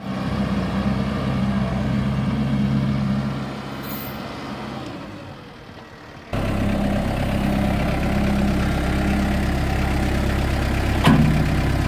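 Kubota tractor's diesel engine running steadily. It fades over a few seconds, then comes back suddenly at full level about six seconds in, and a single sharp knock sounds near the end.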